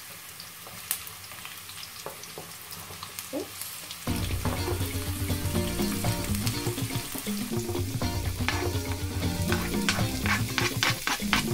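Onions, spring onions and red pepper sizzling in hot oil in a frying pan as more chopped vegetables are scraped in with a wooden spoon, with a quick run of spoon taps and scrapes near the end. Background music comes in about four seconds in and is louder than the frying.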